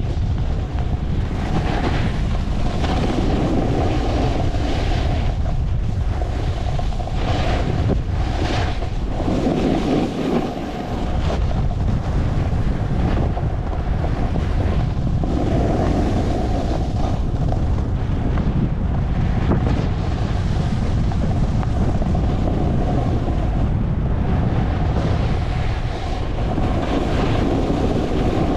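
Wind buffeting the microphone of a camera carried by a skier moving down a groomed piste, a steady rushing. Ski edges scrape and hiss on the snow now and then through the turns.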